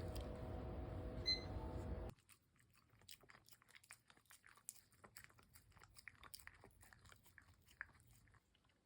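A dog chewing and crunching food: a run of faint, quick, irregular crunches. Before them is a steady hum with a short bright ring, and the hum cuts off suddenly about two seconds in.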